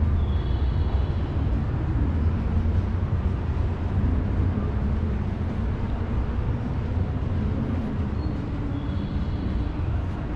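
Outdoor city street ambience: a steady low rumble, with a few brief high chirps just after the start and again near the end.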